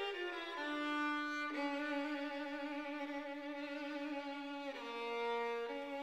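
Background music: a violin playing slow, held notes with vibrato, moving to a new note a few times.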